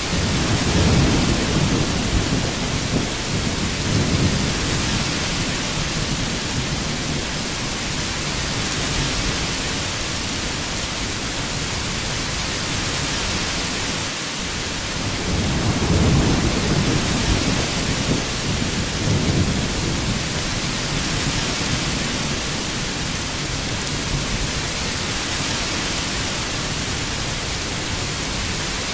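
Heavy rain falling steadily, with low rumbles of thunder twice: in the first few seconds and again about halfway through.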